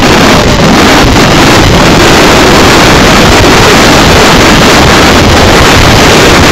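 Loud, steady wind blasting the microphone, mixed with water rushing along the hull of a heeled racing sailboat under sail.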